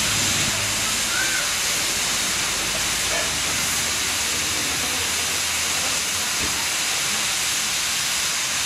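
Steam locomotive venting steam: a loud, steady hiss.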